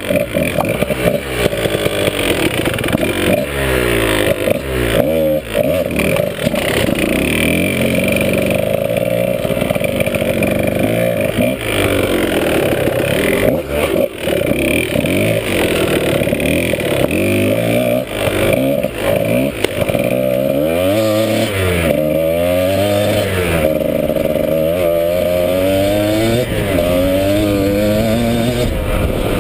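Dirt bike engine revving up and falling back again and again as the throttle is opened and shut through a run of turns and bumps. A few sharp knocks come about halfway through.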